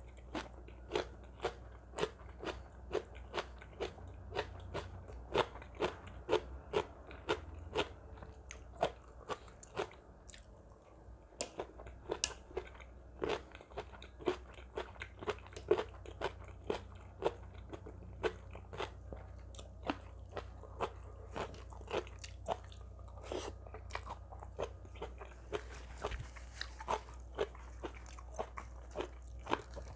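A person chewing a crunchy mouthful of seafood papaya salad close to the microphone, with crisp crunches about twice a second.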